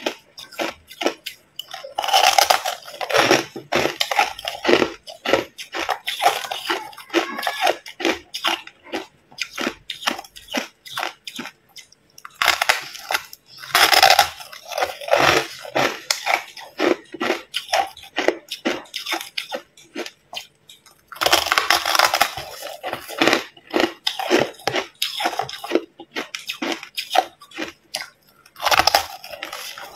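Hard white crushed ice being bitten and chewed: four louder bites, each followed by a run of rapid, crackling crunches as the ice is chewed.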